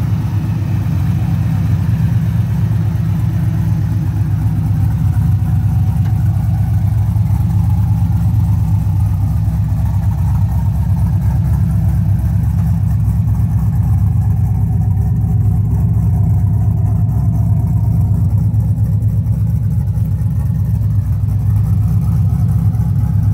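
The supercharged 6.2-litre LSA V8 in a 1972 Chevrolet El Camino idling steadily, a deep, even sound that does not rev up or down.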